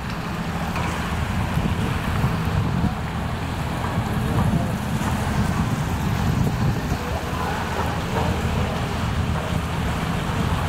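Storm wind buffeting the microphone in a steady low rumble, over the rushing wash of floodwater.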